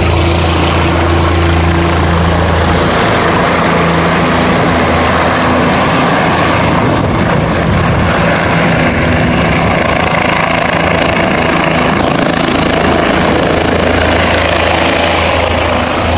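Helicopter descending to land, its main rotor and engine running loud and steady, with a low beating hum under a broad wash of rotor noise.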